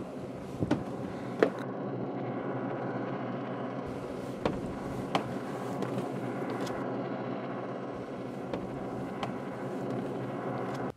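Steady low drone with a few sharp knocks over it, footsteps on wooden deck steps, coming in pairs about three quarters of a second apart.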